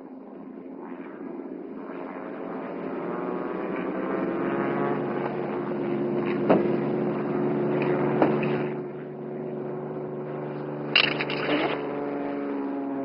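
Light propeller aircraft's piston engine running steadily, growing louder over the first few seconds. Several sharp clicks and knocks come in the second half, the last pair from a seat-belt buckle being fastened near the end.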